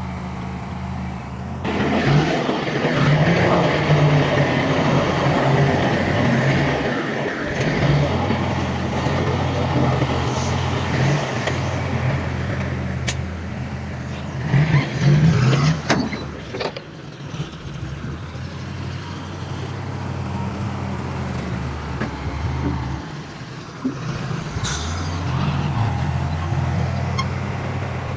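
Heavy diesel earthmoving machinery running steadily. From about two seconds in a loud rush of noise joins the engine, with a few sharp clanks partway through.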